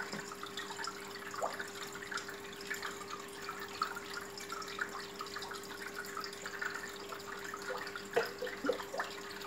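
Water trickling and dripping in a turtle aquarium: many small drips over a steady hum.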